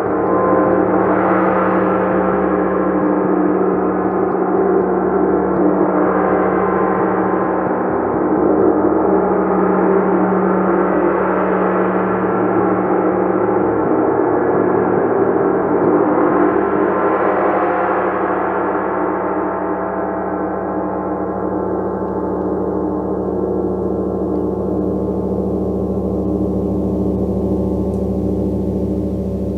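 A gong struck repeatedly with a mallet, its dense ringing wash swelling about every five seconds. In the last third it is left to ring, fading, the higher overtones dying away first.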